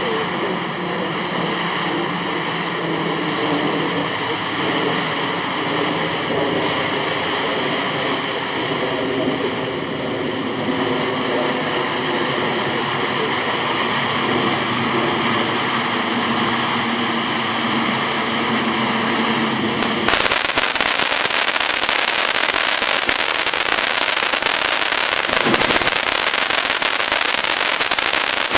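Phantom Fireworks 'New York Harbor' firework fountain burning: a steady spraying hiss with several held tones in it. About twenty seconds in, it switches abruptly to a louder, rougher hiss, a change of effect in the fountain.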